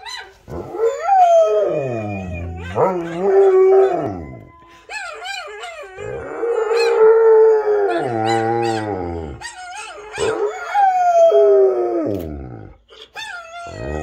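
Rottweiler howling: a series of long howls that rise and fall in pitch, mixed with other dogs howling from a television.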